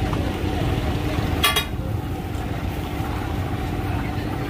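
Steady street-traffic rumble with a low hum. A brief high ring cuts through it about a second and a half in.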